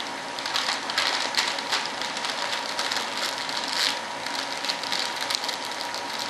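Plastic vacuum-bag film crinkling and crackling in irregular bursts as hands press it down over a composite mold, over the steady hum of a vacuum pump drawing the bag down.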